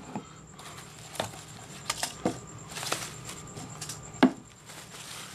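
Handling noise from unpacking a cardboard box: soft rustling of a thin foam wrapper and scattered light taps and clicks as the rolled-up sling is lifted out, with one sharper knock about four seconds in.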